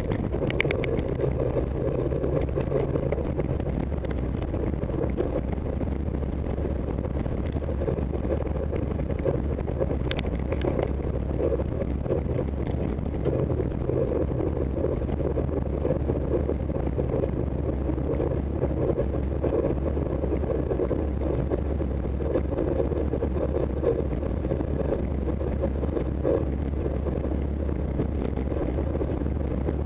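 Steady low rumble of wind buffeting a bike-mounted camera's microphone, mixed with tyre and road noise, while riding in a pack of road-race cyclists.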